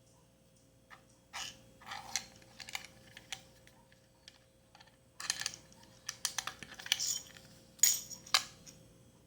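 Small plastic clicks and short scraping rattles as a weighing scale's battery compartment and battery are handled, in two irregular clusters. A faint steady hum runs underneath.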